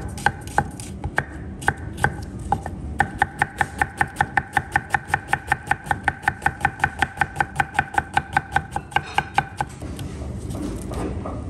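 Large kitchen knife chopping onion on a thick wooden cutting board: a few separate knocks at first, then about three seconds in rapid, even chopping at roughly five to six strokes a second, each knock ringing briefly. The chopping stops a little before the end.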